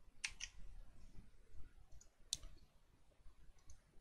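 A few sharp, short clicks at a computer over faint room hiss: two close together just after the start, a single one a little over two seconds in, and a faint pair near the end.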